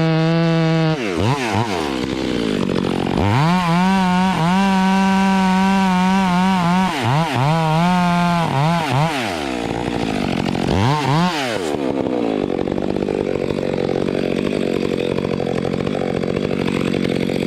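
Chainsaw revved to full throttle, dropping to idle and revving up again several times.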